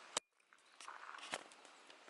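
A single sharp click, then a few faint, irregular footsteps.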